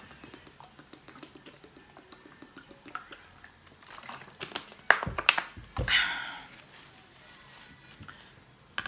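Drinking water from a thin plastic bottle: soft swallowing, then the plastic bottle crackles with a few sharp clicks about five seconds in, followed by a short breathy rush.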